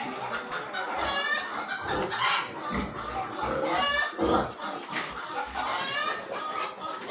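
Chickens clucking, several separate calls a second or two apart.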